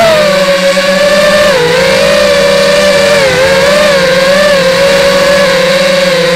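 Electric motor and propeller of a radio-controlled model aircraft, a loud steady whine that wavers and dips in pitch twice as the throttle changes.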